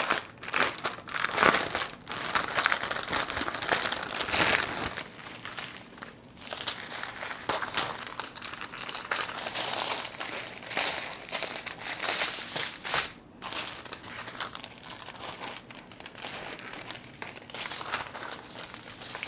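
Clear plastic packaging crinkling as long strips of sealed diamond-painting drill bags are pulled out of their plastic sleeve and unrolled, loudest in the first five seconds and going on in bursts of handling with short pauses.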